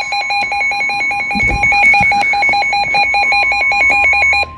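Emergency alert attention tone: a loud electronic beep pulsing rapidly, about eight times a second, over one steady tone. The pulsing cuts off near the end. It is the alert signal that announces a National Weather Service severe thunderstorm warning.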